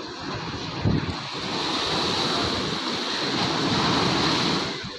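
Sea waves breaking on a beach, with a rushing hiss of surf that swells about a second in and falls away near the end. Wind buffets the microphone with a low rumble.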